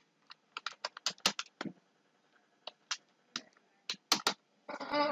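Typing on a computer keyboard: a quick, irregular run of keystroke clicks as a short phrase is typed in, with a brief breathy noise near the end.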